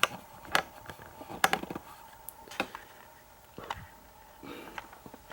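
Handling noise on a workbench: scattered sharp clicks and knocks, about six of them at irregular spacing, as small hard objects are picked up, moved and set down.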